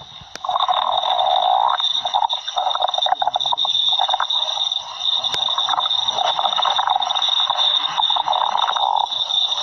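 Cartoon stomach growling sound effect: a series of long growls, one after another, with a steady high whine underneath.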